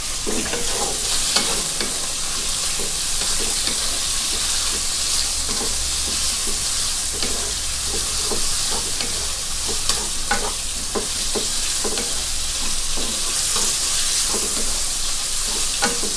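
Sliced pork neck sizzling in oil in a non-stick wok, with a steady hiss, while a wooden spatula scrapes and taps against the pan in irregular strokes as the meat is stirred.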